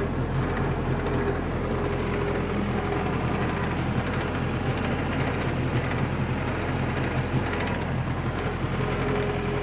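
Old Deutz tractor's diesel engine running steadily while mowing grass with a rear-mounted rotary slasher.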